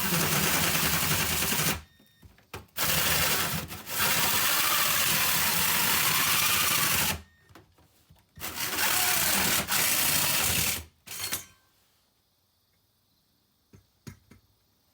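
Power drill cutting a vent hole through diamond plate, running in three long stretches broken by two short pauses, its pitch wavering under load. It stops for good about three-quarters of the way in, once the cut is through the diamond plate.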